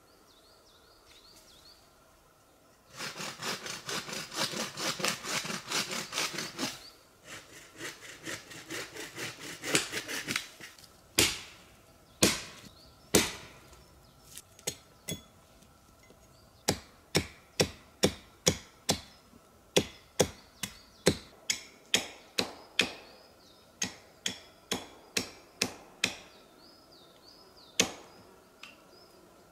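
An axe striking wood: several seconds of fast, dense strokes, then a few single heavy chops, then a long run of lighter blows at about two a second as a point is carved on a wooden stake.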